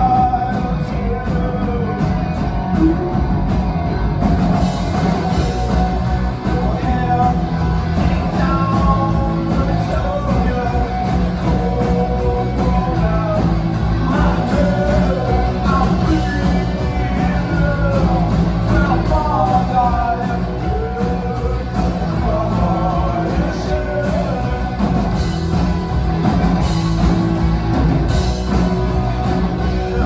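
Live rock band playing a song, with a singer over electric guitar and drums.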